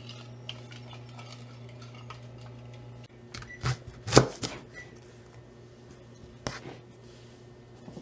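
Large kitchen knife cutting through the root end of a leek onto a wooden cutting board: a few sharp knocks of the blade on the board, the loudest about four seconds in.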